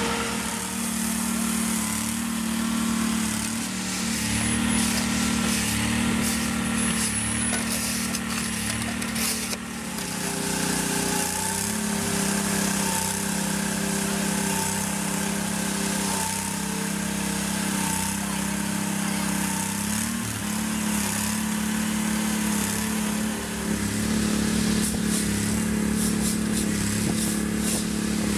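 An engine running steadily, with a slight shift in its note about ten seconds in and again near twenty seconds.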